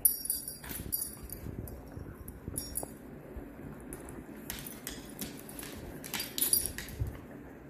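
Dogs' collar tags clinking and jingling in short clusters as a Weimaraner and a German shepherd wrestle and tug a toy, with soft thumps of their bodies shifting on a wooden floor.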